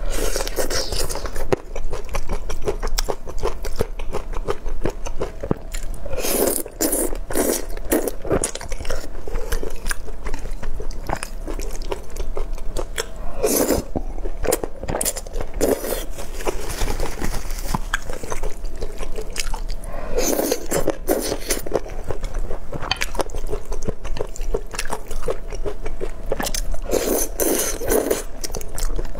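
Close-miked chewing of thick rice noodles in a spicy sauce, with dense wet mouth clicks throughout. A louder slurp comes several times, as a mouthful of strands is sucked in.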